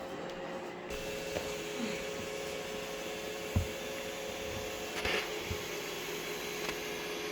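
Roomba J7+ robot vacuum running steadily, a constant whirring hum with a faint whine. A single dull thump about halfway through, with a few lighter knocks shortly after.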